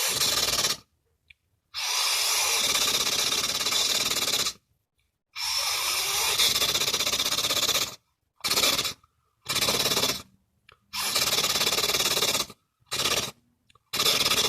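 Beatboxed machine-gun effect: an outward breath with the tongue tip held against the upper teeth and trilled with the jaw closed, giving a rapid rattle like gunfire. It comes in about eight bursts, a few long ones of two to three seconds and several short ones, with silent gaps between them.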